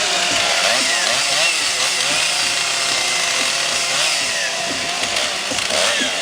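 Several two-stroke chainsaws running at once, carving into cedar logs. Their engine pitches keep rising and falling as the saws are throttled up and eased off in the wood.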